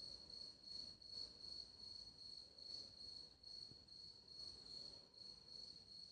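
Near silence, with a faint, high, steady trill that pulses in strength, like an insect's chirring.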